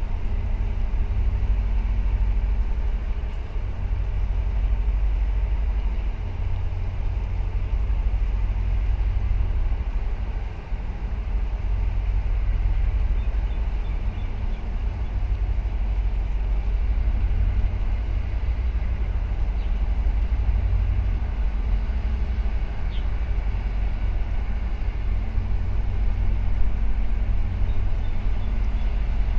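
Low, steady rumble of a large container ship's engines and exhaust as it passes close by, with a faint steady hum that fades out partway through and returns near the end.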